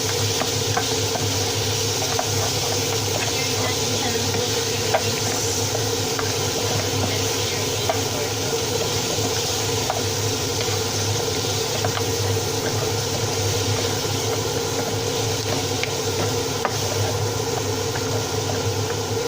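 Oxtail cooking in a pan on the stove: a steady sizzling hiss with scattered small pops and crackles, over a steady low hum.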